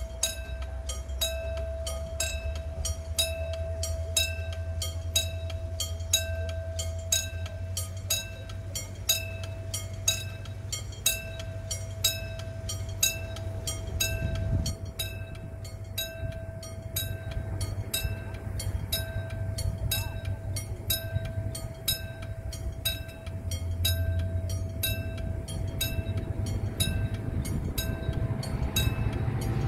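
Railway level-crossing warning bell ringing in a steady repeating rhythm over a low rumble. Near the end the sound of an approaching diesel-hauled train starts to build.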